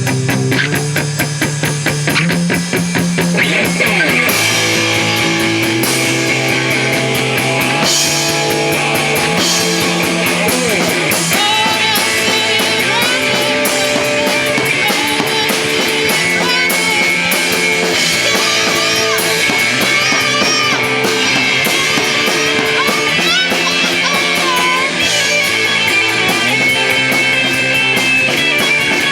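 Live rock band playing a song, with electric guitars, a bass line and a drum kit.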